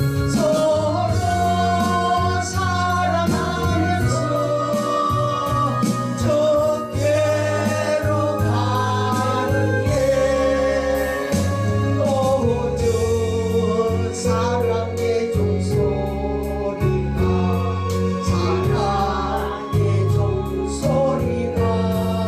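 A gospel song sung over accompaniment, with a steady bass line and a regular beat under the melody.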